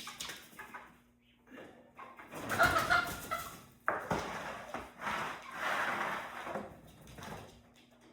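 Domestic fowl making a few short calls amid rustling and scuffling, in two stretches of a few seconds each.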